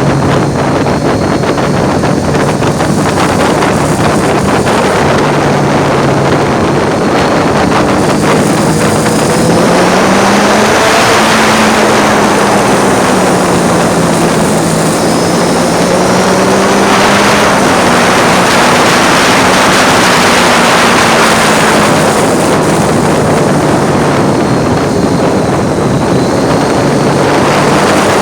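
Triumph Street Triple's 675 cc three-cylinder engine running under way, its note climbing about a third of the way in, rising and falling with the throttle, and settling lower near the end. Heavy wind rush on the phone microphone, strongest in the middle, largely covers the engine.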